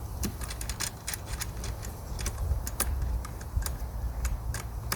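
Sharp, irregular clicks, several a second, as the handle screws on a Flymo Easiglide 300 lawnmower are unscrewed.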